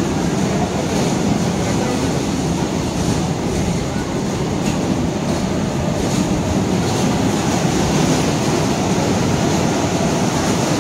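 Kiddie track-ride cars running along their elevated steel track: a steady rumble of wheels on the rails, with a few faint clicks.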